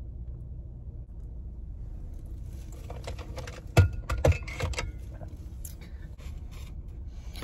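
Small items being handled and rummaged through, with light clicks and rattling and two dull thumps about four seconds in, over a steady low hum inside the car.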